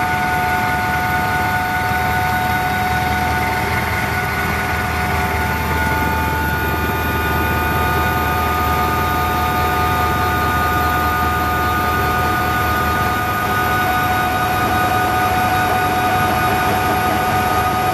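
Helicopter cabin noise in flight: the turbine engines and rotor running loud and steady, a constant high whine of several tones over a dense rumble.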